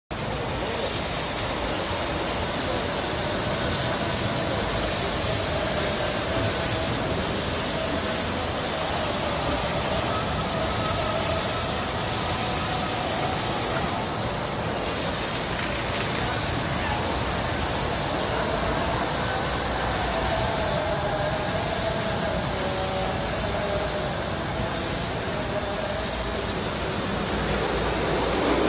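Automatic car wash running: a steady hiss of water spray from the wash gantry, with a faint wavering hum from the machinery.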